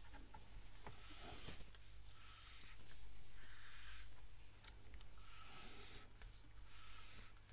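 Hands gripping and twisting the front section of a Nikon Monarch UCC rifle scope to unscrew it counterclockwise: a series of faint scratchy rubbing strokes, about one a second, with a few light clicks.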